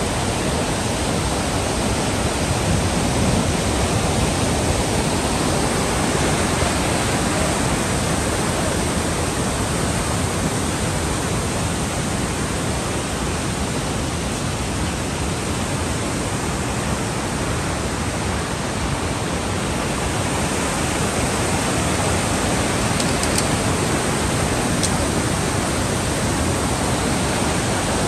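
Fast mountain river running over boulders in white-water rapids: a steady rush of water.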